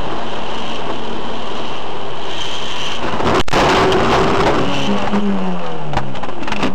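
Loud, steady noise of a car driving on a wet road, picked up by a windshield dashcam's microphone, with one sharp knock about three and a half seconds in.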